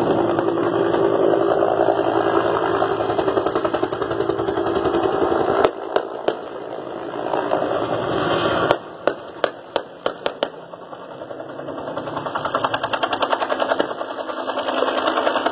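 A low-flying police helicopter's engine and rotor running with a fine, even pulse, fading somewhat about 9 s in and growing louder again near the end. Over it come sharp single rifle shots: three close together about 6 s in, then a run of about six between 9 and 10.5 s.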